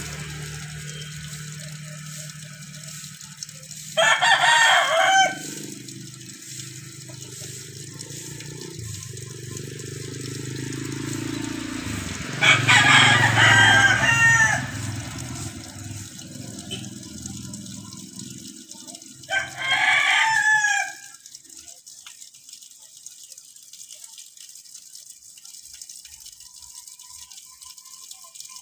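A rooster crowing three times, each crow one to two seconds long, over a low steady hum that dies away after the third crow.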